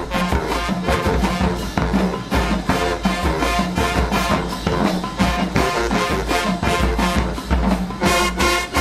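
High school marching band playing: brass section over a steady drumline beat.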